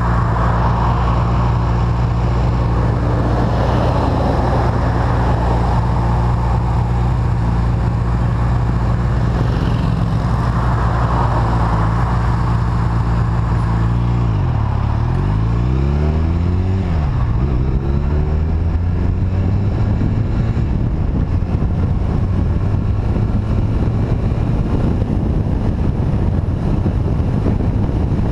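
Motorcycle engine running under way on a red cruiser, over a steady rushing noise. About halfway through, the engine pitch drops and climbs again twice.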